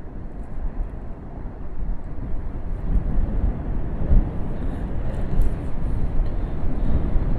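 Steady rumble of wind buffeting the microphone, mixed with the wash of rough surf, growing a little louder about three seconds in.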